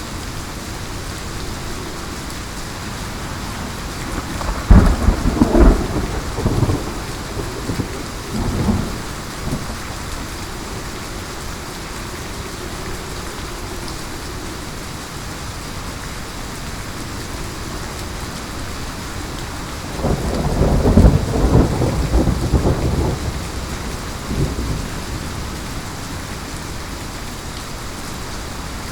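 Steady heavy rain with two rolls of thunder: the first about five seconds in, the second about twenty seconds in, each rumbling low and loud for several seconds before fading back into the rain.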